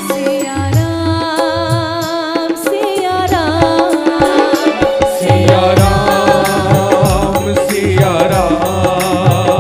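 Devotional bhajan music: a woman singing a chant melody over sustained accompaniment and a hand-drum beat. The drumming gets heavier and busier about halfway through.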